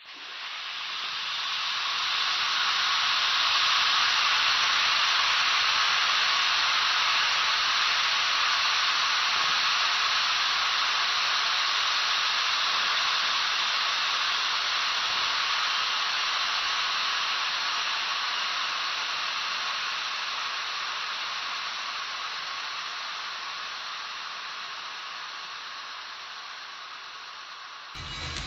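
Martian heat-ray sound effect: a steady, even hiss that swells in over the first few seconds, holds, then slowly fades through the second half and cuts off near the end.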